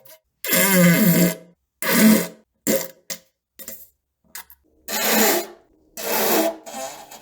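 A string of about six separate farts with short gaps between them, some brief and some lasting about a second, each with a low buzzing pitch.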